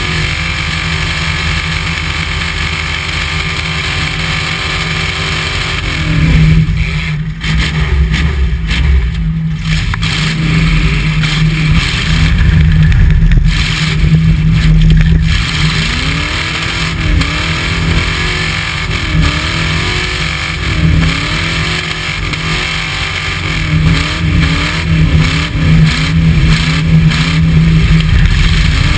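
Demolition derby pickup's engine running hard, heard from inside the stripped cab; in the second half the revs rise and fall over and over, about once a second or two.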